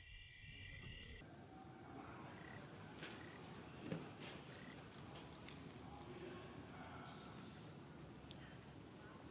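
Steady chorus of insects, a continuous high-pitched pulsing trill, with one sharp tap about four seconds in.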